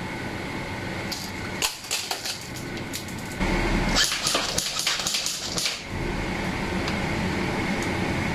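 APS UAR 501X Gen II airsoft rifle with an Edge III MOSFET gearbox firing: a few separate shots at first, then louder, quick strings of shots from about three and a half seconds in.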